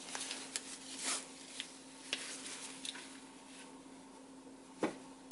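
Canvas tote bag being unpacked by hand: fabric rubbing and rustling with scattered light clicks as items are pulled out, and a soft thump near the end. A faint steady hum runs underneath.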